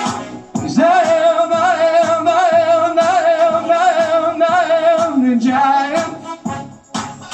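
A man singing into a handheld microphone over a backing track with a steady beat. He holds one long note with vibrato from about a second in until about five seconds, then drops lower into a shorter phrase.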